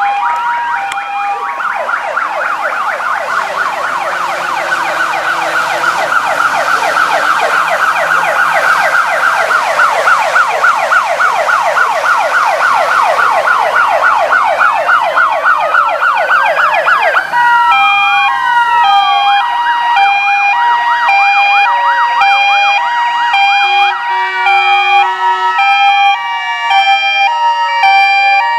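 Several fire-vehicle sirens sounding at once, loud. Until about two-thirds through, a fast yelp dominates; after that, slow rising-and-falling wails mix with a stepped two-tone hi-lo horn.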